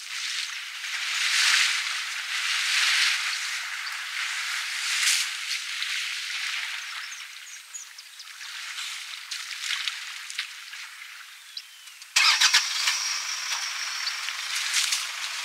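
An African bush elephant wading and splashing through a shallow waterhole, the splashing coming in surges during the first five seconds. About twelve seconds in the sound jumps louder, with a cluster of sharp clicks.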